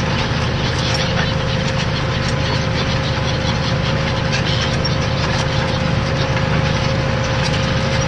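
New Holland T7.235 tractor's engine running steadily under load while pulling a reversible plough, heard from inside the cab, with a steady high whine over the low engine hum.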